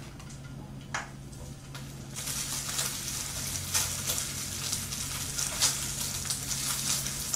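Mini chicken skewers sizzling in a frying pan, the sizzle starting about two seconds in after a single knock. A steady low hum runs underneath.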